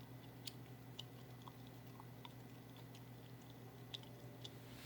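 Near silence: faint steady room hum with a few scattered small clicks.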